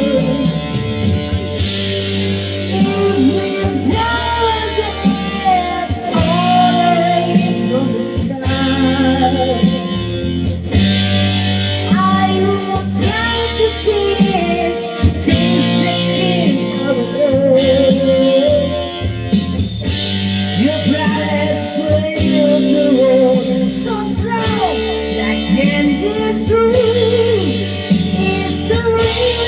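A pop love song playing: an instrumental break between verses, with a melodic guitar lead over a steady bass line.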